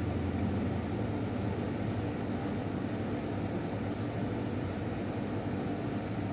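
A steady low mechanical hum with a hiss that stays even throughout.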